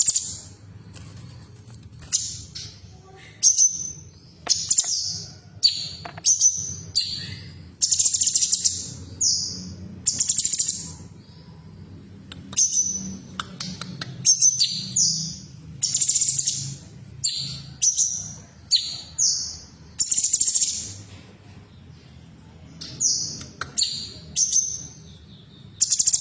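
Female cucak cungkok calling: a fast run of short, loud, high chirps, roughly one a second, in bursts with brief pauses. A faint low hum sits underneath.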